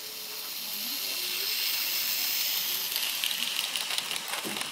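HO-scale model train running on the track close to the microphone: a steady high hiss from its motor and wheels that grows louder, then a quick run of rapid clicking from about three seconds in.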